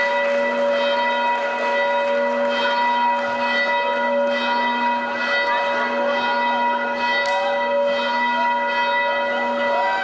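A loud, steady held chord of bell-like tones that stays unchanged and stops near the end.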